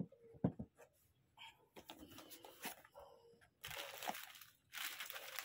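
Two sharp knocks near the start as a metal guitar effects pedal is set down on a hard surface. From a little past halfway, plastic wrapping crinkles steadily as an item is unwrapped.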